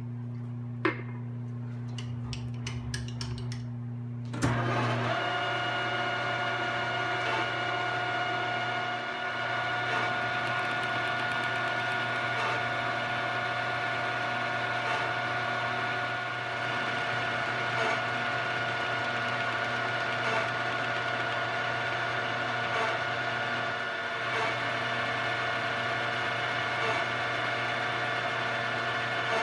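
Vertical milling machine's spindle running with a steady hum, a sharp click about a second in, then about four seconds in the end mill bites into the rough saw-cut face of a solid aluminum block. From then on there is a steady, louder cutting whine with several fixed pitched tones as it face-mills the side clean.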